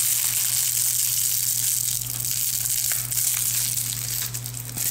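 Plastic bubble wrap crinkling and rustling as hands unfold and work through it, with small irregular crackles throughout.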